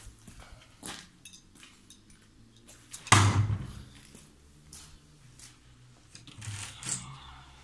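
A thrown knife strikes and sticks in a wooden door about three seconds in: one loud sharp hit with a deep thud from the door panel, dying away quickly. Near the end, softer scraping as the knife is worked loose from the door.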